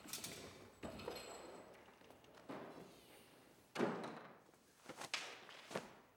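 Heavy wooden doors being shut, a series of knocks roughly a second apart, the loudest about four seconds in.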